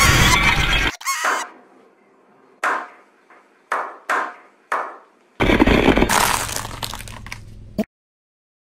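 A car tyre crushing a brittle painted object, a loud crunch and crackle of breaking pieces for about the first second, trailing off. Then a few slow, separate handclaps, followed by a louder burst of sound lasting about two and a half seconds that cuts off suddenly.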